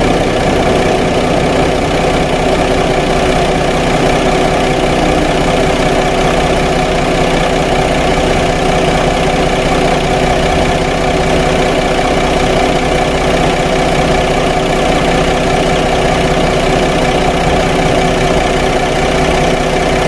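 2014 Mercedes-Benz C300's V6 idling steadily at about 620 rpm. The idle is a little rough, rougher than it should be after a timing-chain job, with a couple of misfires on cylinder five and bank two running rich.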